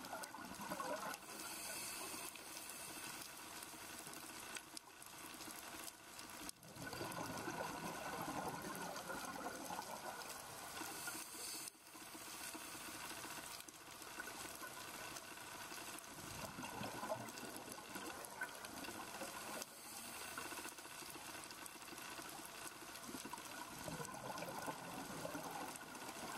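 Scuba diver breathing through a regulator underwater, with a bubbly rush of exhaled air every few seconds between quieter inhalations.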